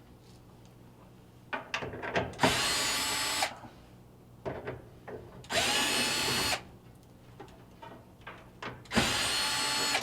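Cordless drill backing out screws from a dryer's blower housing cover. It runs in three short spurts of about a second each, with small clicks of the bit being set on each screw in between.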